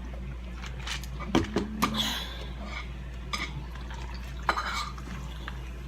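Cutlery clinking and scraping against a plate while eating. There is a cluster of sharp clinks about a second and a half to two seconds in, and another about four and a half seconds in, over a steady low hum.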